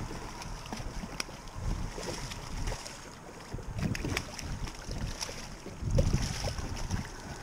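Wind buffeting the microphone and water slapping against a small boat's hull, with a hooked fish splashing at the surface. About six seconds in comes a heavier splash as the fish is grabbed by hand at the boat's side.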